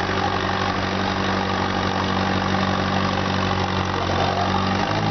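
Antique farm tractor engine running steadily as it pulls a weight-transfer sled, its pitch shifting slightly near the end.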